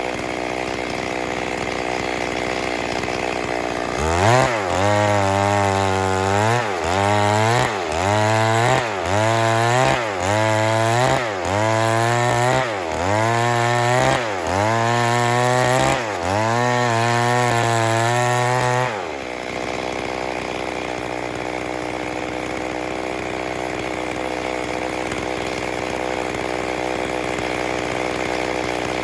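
Stihl MS 382 two-stroke chainsaw idling, then run up to high speed about ten times in a row over some fifteen seconds, the engine pitch climbing and dropping back with each surge, before settling back to idle.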